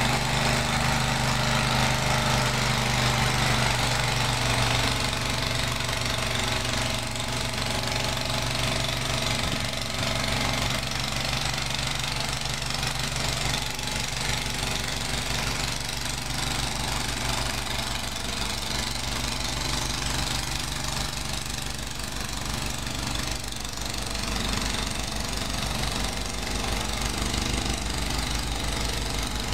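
Bolens 824A snowblower's small gasoline engine running steadily.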